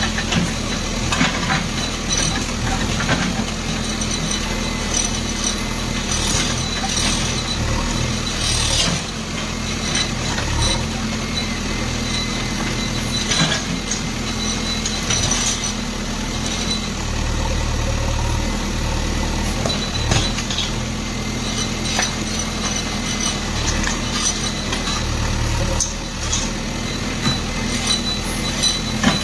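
Bulldozer's diesel engine running steadily, with scattered knocks and clinks of material being broken during the demolition.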